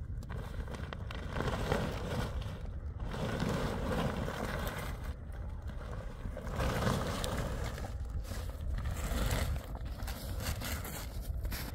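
Heavy canvas tent fabric rustling and crumpling as it is pulled and gathered up by hand, in several swells, over a steady low rumble.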